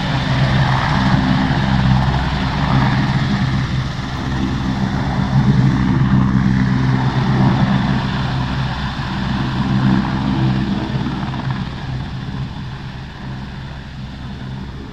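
AgustaWestland AW101 three-engine helicopter flying low past, its main rotor beating over the hiss of the turbines. The sound grows fainter over the last few seconds as it moves away.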